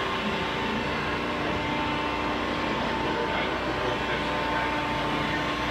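Steady machine noise: a constant running hum with a few steady tones over an even hiss, unchanging throughout.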